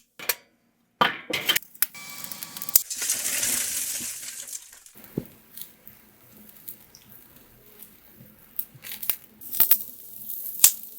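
Sharp clinks and knocks as cooking utensils and ingredients are handled and set down, with a stretch of hissing noise from about two to five seconds in.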